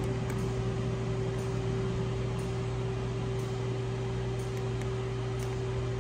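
Steady mechanical hum: a constant low drone with a fainter higher steady tone over an even rushing noise.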